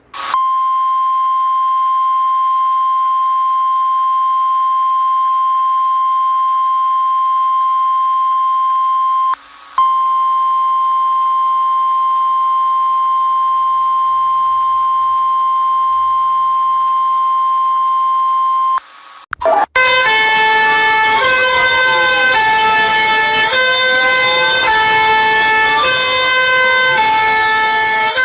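Emergency alert system alarm tones. A single steady electronic tone is held for about nine seconds, breaks off for a moment, and is held for about nine seconds more. After a short gap comes a busy pattern of stepping electronic tones crossed by rising and falling pitch sweeps.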